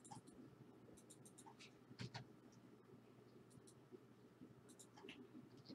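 Near silence with faint, scattered rustles and soft clicks of trading cards being handled and slid through by hand, the clearest about two seconds in.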